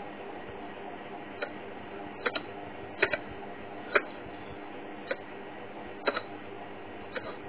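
Hedgehog foraging in grass at close range: about ten short, sharp clicks at irregular intervals, some in quick pairs, the loudest about four seconds in, over a steady background hum.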